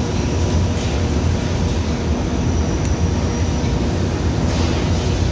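Doosan CNC vertical mill running with a steady low hum as its spindle turns through an automatic Renishaw toolsetter calibration cycle, with a faint click about three seconds in.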